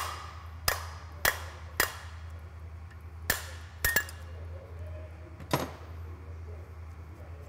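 Light hammer taps on a nut threaded onto the end of a Honda PA50 moped crankshaft, knocking the crank out of its crankcase half. There are seven sharp taps, spaced unevenly, over about six seconds.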